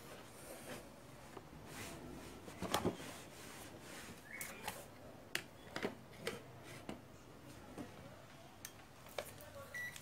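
Scattered faint clicks and taps from a washing machine control board being handled on a wooden bench. Two short electronic beeps, one about four seconds in and one near the end.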